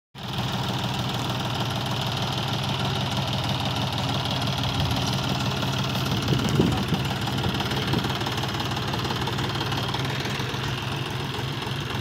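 Farm tractor's diesel engine idling steadily, briefly a little louder about six and a half seconds in.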